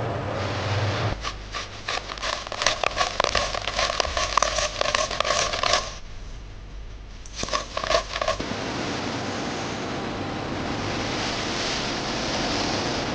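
Factory machinery: a steady running noise, then a rapid, irregular clatter of clicks and rattles with a ringing tone for about five seconds, a brief lull, a second short clatter, and a steady running noise again.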